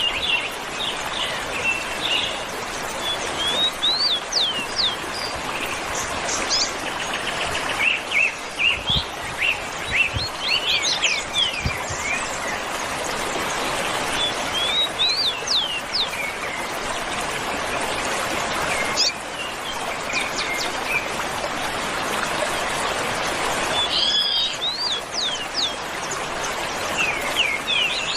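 Several wild birds chirping and calling in quick, short notes that sweep up and down in pitch, over a steady background hiss.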